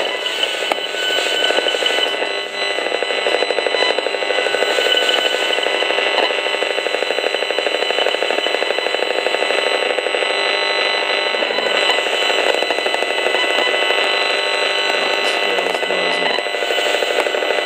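Gigahertz Solutions HF35C RF analyser's audio output playing from its speaker: a steady, dense buzz, the demodulated sound of the cell-tower radio signals it is measuring as the readings climb outside the shielded room.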